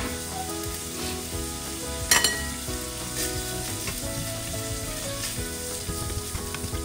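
Rice, diced carrot and spam sizzling in a hot stainless steel frying pan while being stirred and turned with a spatula, with sharp clinks of the utensil against the pan right at the start and, loudest, about two seconds in.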